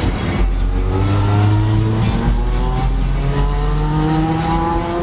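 A motor vehicle's engine accelerating, its pitch rising steadily. About two seconds in there is a break like a gear change, after which the pitch climbs again.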